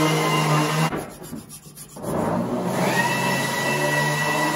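A small metal tool scraping and rubbing along the rail groove of a chainsaw guide bar, clearing out packed gunk, over a steady hum. The sound drops away for about a second, starting about a second in.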